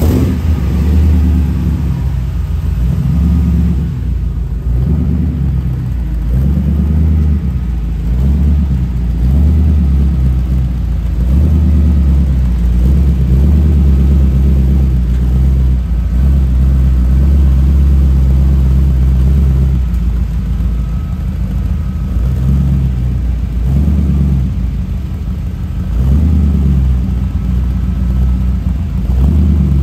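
The engine of a Ferrari 250 Testarossa replica built on a 1992 Corvette platform, idling just after a cold start with a deep, steady note from its four tailpipes.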